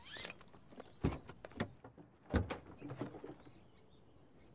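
A driver unbuckling his seatbelt and getting out of a car to open the back: a click and a short whir of the belt, then a few knocks and thuds of the car door and bodywork, the loudest about two and a half seconds in.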